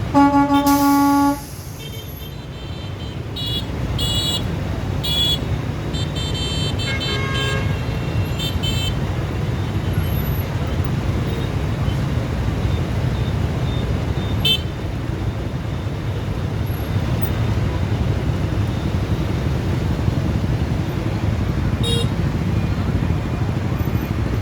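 A vehicle horn honks once, loud and about a second long, right at the start, over a steady traffic rumble. Short, high-pitched beeps come and go over the rumble for the next several seconds.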